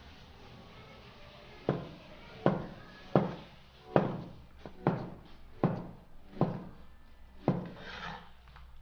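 Chinese cleaver slicing a block of pressed tofu on a wooden cutting board: eight knocks of the blade on the board, slow and even, a little under a second apart. A short scrape near the end.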